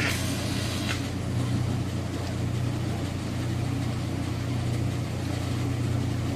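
Steady low hum with an even hiss from the robotic welding station's machinery running, unchanging throughout.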